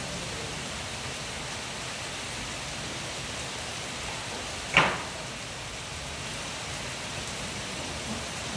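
Steady rain falling, an even hiss, with one sharp knock a little over halfway through.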